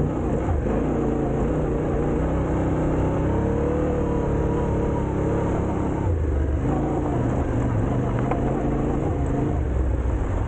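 Vehicle engine running under way with heavy wind and road rumble; its pitch rises and then falls back about a third of the way in.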